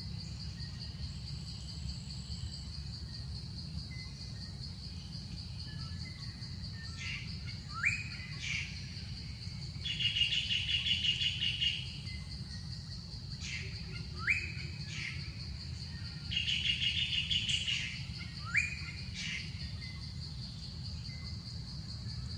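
Forest ambience: a bird calling with short upward-sweeping notes and twice breaking into a rapid trill about two seconds long, over a steady high insect drone and a low rumble.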